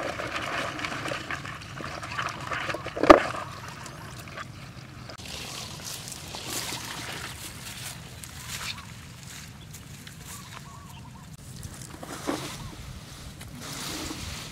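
Leafy plants rustling and brushing, with bare footsteps on grassy ground, and a single sharp tap about three seconds in.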